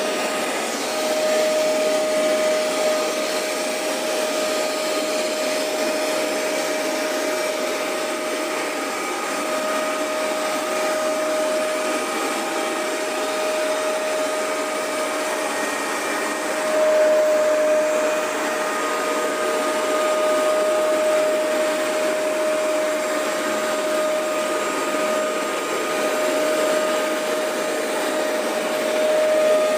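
Hoover Max Extract 77 carpet deep cleaner running steadily during cleaning passes: a steady whine with small swells in loudness.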